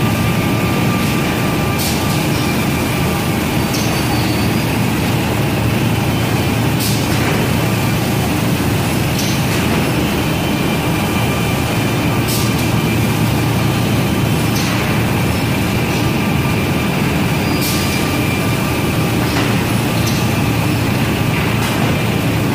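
Holztek Z63 multi-spindle cam-lock boring machine and its dust extraction running steadily, with a faint high whine that comes and goes. Sharp clacks break through every two to three seconds while boards are fed through it.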